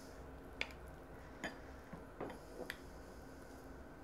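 A metal spoon scooping baked apple crisp out of a glass pie plate, making a few faint, scattered clicks of spoon against glass.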